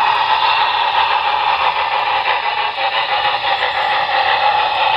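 Model railroad freight train hauled by a Union Pacific two-tone Challenger locomotive model, running past with a steady rolling and motor noise from the wheels on the track.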